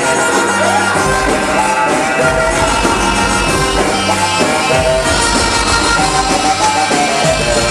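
Loud Egyptian dance music mix with a pulsing bass beat and melodic lines over it.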